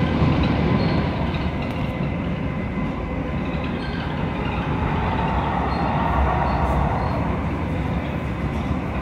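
Light rail train running along the track, heard from inside the passenger car: a steady rumble of wheels and running gear with a faint steady tone, swelling briefly around the middle.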